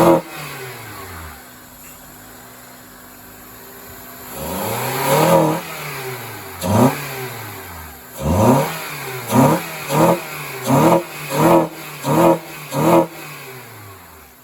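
2003 Honda Accord engine breathing through an aftermarket ram air intake, revved with throttle blips that each fall back toward idle. There is one longer rev about four seconds in, then a fast run of seven short blips near the end.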